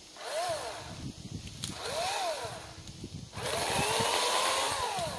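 Greenworks 80-volt battery chainsaw's electric motor whining up and back down in two short trigger pulls, then running for about a second and a half before winding down.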